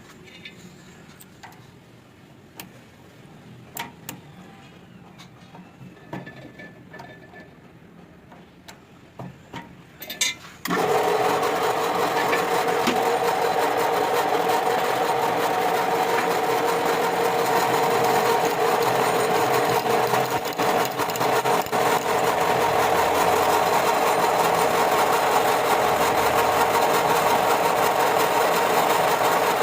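Light clicks and knocks of parts being handled, then about ten seconds in a machine starts abruptly and runs steadily with a constant hum and whirr.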